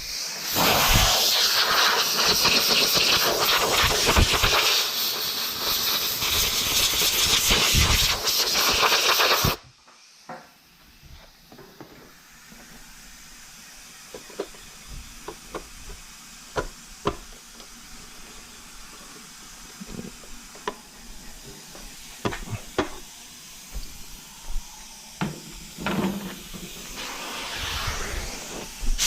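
A long blast of compressed air, about nine seconds, blowing debris out of a freshly widened hole in a plastic center console; it cuts off suddenly. Quieter scattered clicks and knocks follow, and a second blast starts right at the end.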